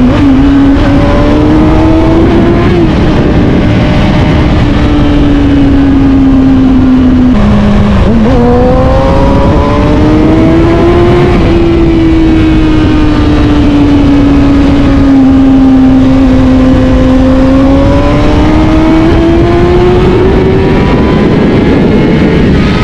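Sport motorcycle engine heard from the rider's seat while under way. Its pitch climbs and eases with the throttle, drops suddenly about seven seconds in and then climbs again, over a steady rush of wind and road noise.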